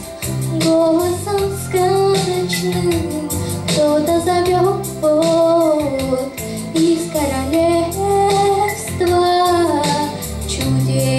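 A young girl singing a pop song into a handheld microphone over instrumental backing music with a steady beat, holding long notes that glide up and down in pitch.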